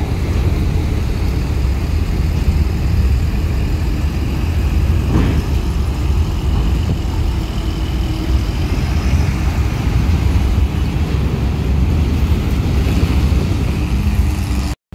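Hino RN 285 tour bus's diesel engine running under load as the bus climbs a ferry's loading ramp: a steady low rumble.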